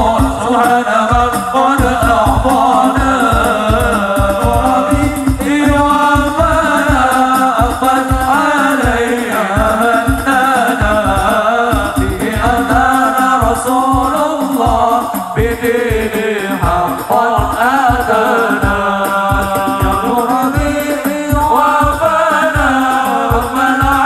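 Hadroh ensemble performing sholawat: men's voices singing an Arabic devotional song into microphones over fast, steady rebana frame-drum beats.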